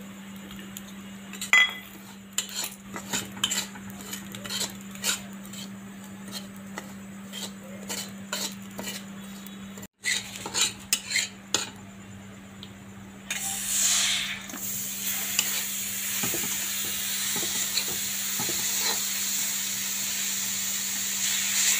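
Steel spatula stirring and scraping semolina in an iron kadhai, with many short clicks and scrapes of metal on the pan. About two-thirds of the way in a steady sizzling hiss begins, with more scraping over it.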